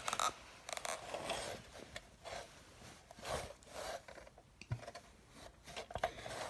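Scraping, rustling and clicking handling noises, in short irregular bursts, with a quick run of clicks at the start.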